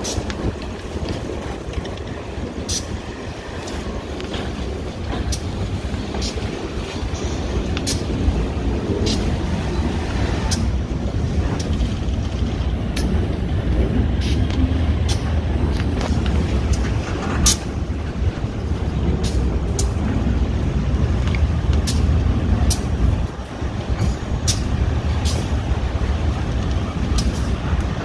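GE AC44i diesel-electric locomotives moving slowly past, their engines running with a steady low rumble. Irregular sharp clicks come from the wheels on the yard track, about one every second or two.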